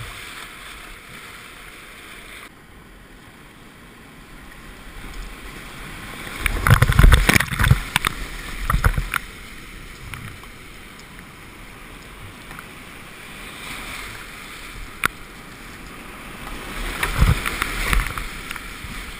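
Whitewater rapids rushing around a kayak, heard close up from a helmet-mounted camera. Loud surges of crashing, splashing water hit the boat and the microphone about six to nine seconds in and again near the end.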